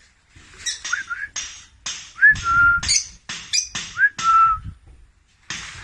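Lovebirds calling: a run of short, shrill chirps and squawks, with two clear whistled notes that swoop up and then hold steady, about two and four seconds in.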